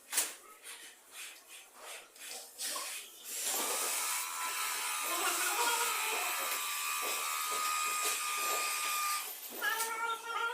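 Electric power tool motor running steadily with a high whine for about six seconds, then stopping, after a few sharp clicks and taps.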